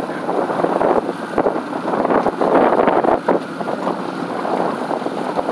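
Wind buffeting the microphone aboard a boat: a rough rushing noise that swells and dips unevenly.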